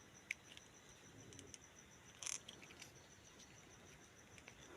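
Near silence with a few faint, light clicks and ticks from a stripped wire being eased into a loosened screw terminal on a switch board, over a faint steady high whine.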